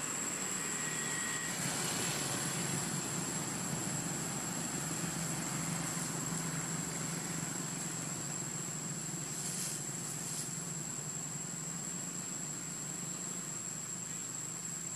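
Steady outdoor background noise under a constant high-pitched whine, with two brief high rustles about ten seconds in.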